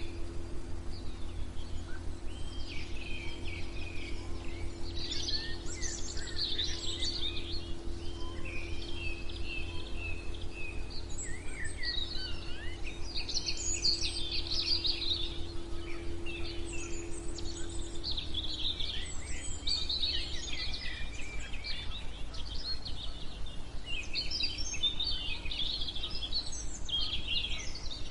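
Songbirds chirping and twittering over a steady bed of noise that is heaviest in a low rumble. A faint steady hum runs under it and fades out about two-thirds of the way through.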